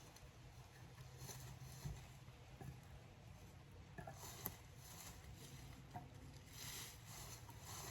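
Near silence: faint rustling, with a few soft ticks and a low hum.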